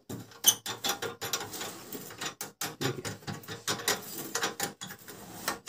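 Quick irregular metallic clicks and scraping as the screw holding a burner of an LPG gas stove is undone.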